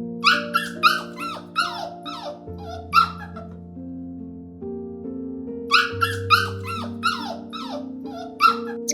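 A dog giving short, high yaps, each falling in pitch. They come in two runs: about eight in the first three seconds, then six more after a pause of a few seconds. Steady background music plays underneath.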